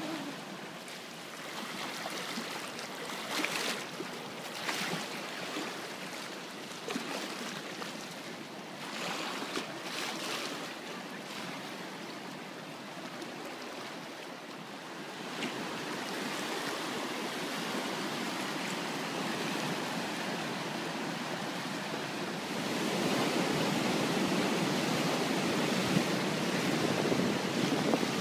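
Flood-swollen Otava river rushing and churning past its bank, a steady noise of fast floodwater that grows louder near the end.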